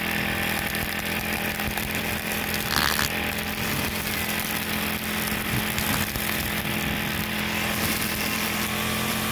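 Four-stroke Honda brush cutter engine running steadily at working speed as its metal blade is swept through weeds, with a brief higher-pitched burst about three seconds in.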